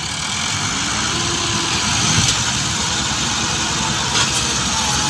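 Several Ford and Massey Ferguson tractors' diesel engines running hard together under load, pulling a stuck, heavily loaded trolley out of soft ground. A dense, steady engine rumble.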